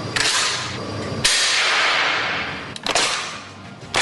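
Four sharp cracks about a second apart, each trailing off into a hiss.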